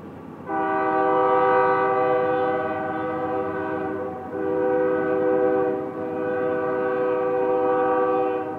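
Locomotive multi-chime air horn sounding a chord over the rumble of a passing train. It starts about half a second in with a long blast of nearly four seconds, then after a brief break sounds again in two blasts that run almost together.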